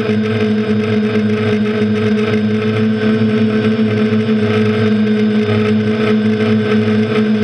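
Quadcopter's electric motors and propellers whirring steadily at an even pitch, heard close from a camera mounted on the aircraft.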